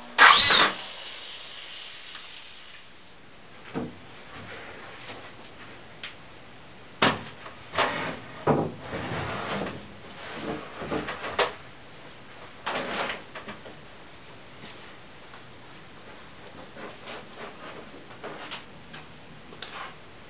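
A power drill whirs briefly and winds down at the very start. Then come scattered wooden knocks, bumps and short scrapes as a heavy wooden sheet top is handled and set down onto a 2x6 workbench frame.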